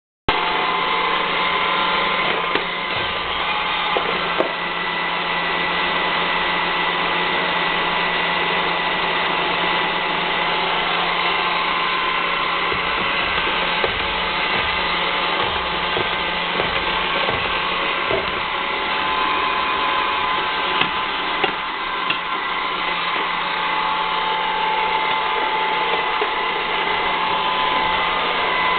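Robot vacuum cleaner running with a steady motor whir and high whine, with a few light knocks along the way.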